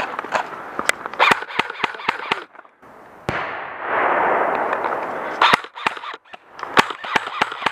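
Airsoft rifles firing in scattered shots and short strings, sharp snapping cracks. About three seconds in, a steady hiss lasts about two seconds, then the shots resume.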